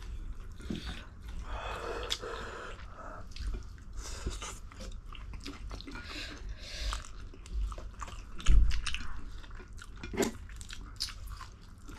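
Close-up chewing of spicy ramen noodles, with many small wet mouth clicks and a louder low bump about eight and a half seconds in.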